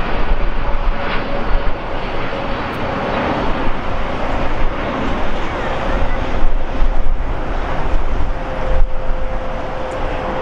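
Jet engines of a Boeing 787 Dreamliner climbing out just after takeoff: a steady, broad rumble with a thin, steady whine running through it.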